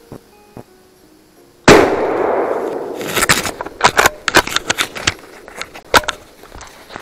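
A single .450 Bushmaster rifle shot about a second and a half in, very loud, its boom dying away over about a second. It is followed by a run of sharp clicks and clattering knocks from gear being handled close to the microphone.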